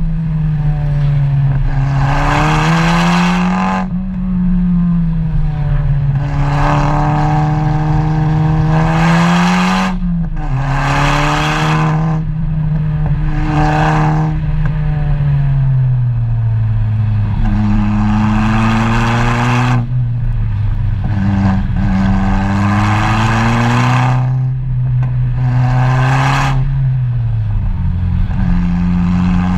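A vehicle's engine driven hard. The revs climb and then drop sharply several times, as at gear changes or lifting off the throttle, with a slower fall partway through.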